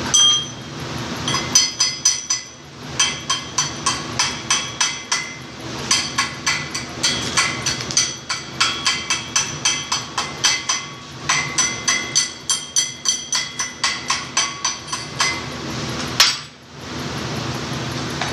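A hammer rapping a freshly welded steel joint: rapid ringing metal-on-metal clinks, about three to four a second, with a short pause about two seconds in and a last single strike about sixteen seconds in, over a steady low hum.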